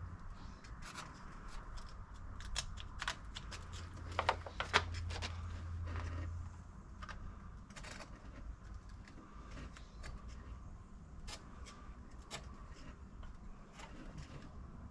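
Hand-tool work on a small two-stroke string trimmer's engine: scattered light clicks, taps and scrapes of tools against metal and plastic parts. A couple of sharper clicks come about four to five seconds in.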